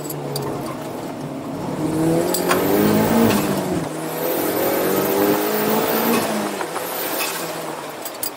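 A 300 hp Mazda Miata's engine, heard inside the cabin, revving up hard under throttle. About four seconds in it cuts briefly for a gear change, pulls up again, then drops in pitch as the car eases off near the end.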